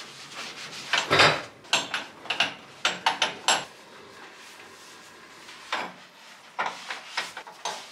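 Burner caps and grates of a glass-topped gas hob knocking and clattering as they are lifted off and set down during cleaning, with a cloth wiping over the glass between the knocks. The knocks come in two irregular runs, the first starting about a second in and the second near the end.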